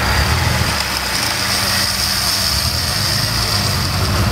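Off-road 4x4's engine running steadily at low revs while the vehicle sits stuck in sand, with a steady high-pitched whine on top.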